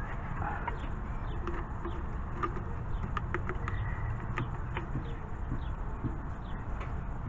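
Faint clicks and handling noise as gloved hands work a rubber tie rod dust boot onto the inner tie rod, over a steady low background hum, with faint bird calls in the background.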